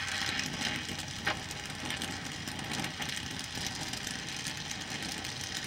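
Oxy-fuel welding torch flame running with a steady hiss while filling a hole burned through a muffler, with one short sharp tick about a second in.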